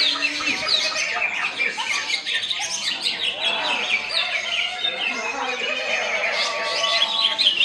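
Cucak hijau (green leafbird) singing a rapid, varied song of quick chirps, squawks and trills, overlapping with other birdsong in a dense chorus, with voices faintly underneath.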